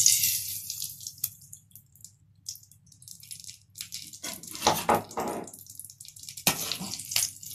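Granulated sugar poured into a metal kadai with a hiss in the first second, then a metal ladle scraping and stirring the sugar and ghee against the pan about halfway through and again near the end, with a low steady hum underneath.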